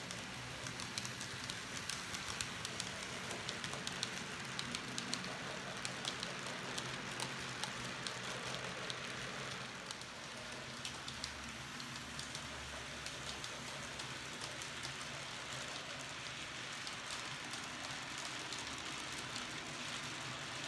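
Model train running on the layout track: a steady rolling hiss dotted with many small clicks from the wheels over the rails and joints, over a low, steady motor hum.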